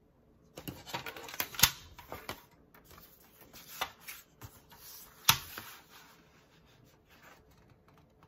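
Black cardstock sliding and rustling on a cutting mat, mixed with plastic clacks from a small paper trimmer being positioned. Two sharp knocks stand out as the loudest, about one and a half seconds in and again about five seconds in.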